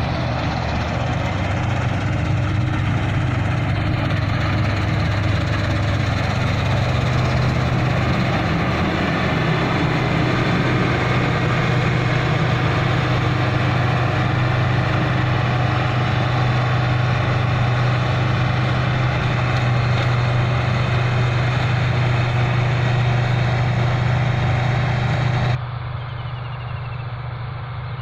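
Combine harvester running steadily at work: a constant low engine drone under a broad mechanical noise. About two and a half seconds before the end the sound suddenly becomes quieter and duller.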